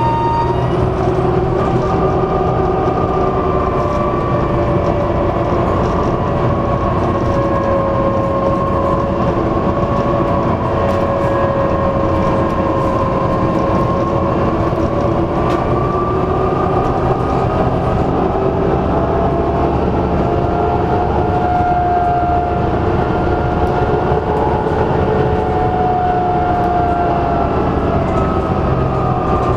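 Dennis Trident double-decker bus under way, heard on board: a steady engine rumble with a turbo whine, several whining tones that slowly rise and fall as the bus speeds up and slows.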